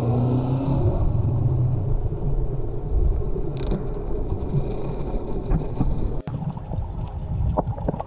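Muffled underwater rumble and water noise picked up by a GoPro camera underwater, with a sudden break about six seconds in and light clicks and knocks near the end.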